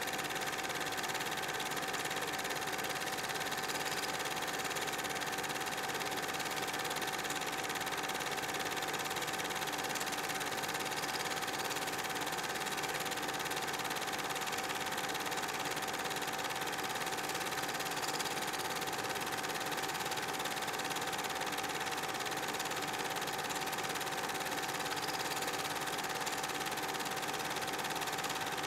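Film projector running: a steady mechanical whir with a constant high tone and no change in level.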